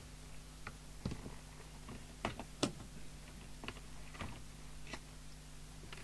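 Light, irregular clicks and taps, about ten over six seconds, from equipment and controls being handled on a radio service bench, over a faint steady hum.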